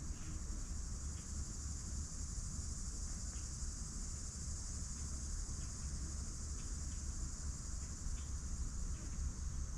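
Steady high-pitched drone of insects, crickets or cicadas, over a low rumble, with a few faint scattered ticks.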